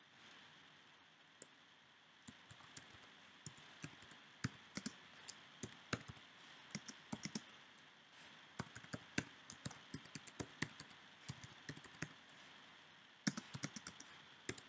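Typing on a computer keyboard: irregular key clicks in short runs, starting about a second and a half in, over a faint steady hiss.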